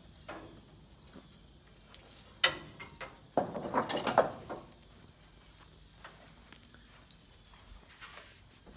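Ratchet tie-down being cranked tight to secure a truck on a trailer: a couple of sharp clicks, then about a second of rapid ratcheting clicks midway.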